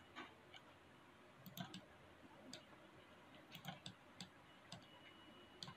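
Near silence with a scattering of faint computer mouse clicks, some in quick pairs or threes, as knife-tool cut points are placed in the 3D editor.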